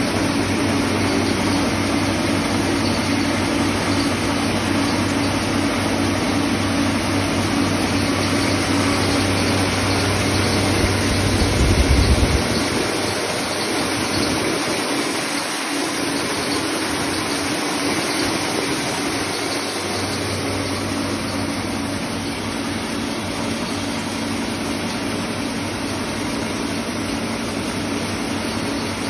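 Heavy-duty wheat cleaning and grinding machine running with a steady mechanical noise. Its low hum drops away about twelve seconds in while the grinding noise goes on.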